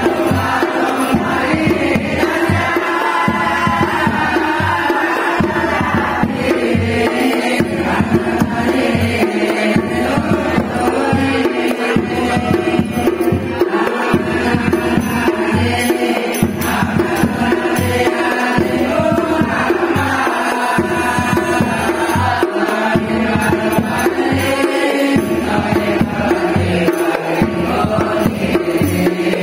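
Hadroh percussion: a large bass drum struck with a felt mallet and a small hand-beaten frame drum keep a steady beat under chanted group singing.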